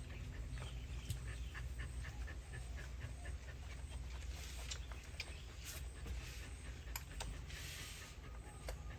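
Faint sounds of a sleeping puppy breathing, with scattered small clicks and a short rustle near the end, over a steady low hum.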